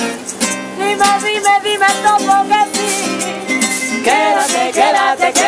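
Acoustic guitar strummed with a shaker keeping a steady beat, while voices sing a lively tune over it.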